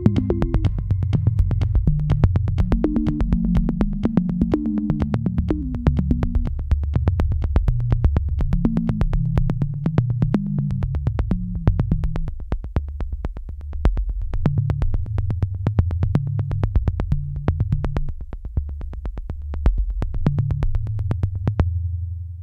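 Electronic background music: synthesizer bass lines under a steady, regular beat. The beat stops near the end while a low bass note holds.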